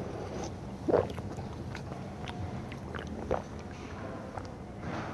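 Close-miked eating sounds: a bite about a second in, then chewing bread, with scattered small clicks and crackles.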